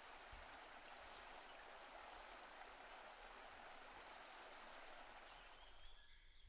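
Near silence: a faint, steady hiss of outdoor ambience that fades out near the end, as a few faint high chirps begin.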